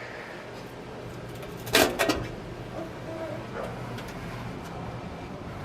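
Two short knocks close together about two seconds in, over a low steady hum: the metal air cleaner housing and filter being handled.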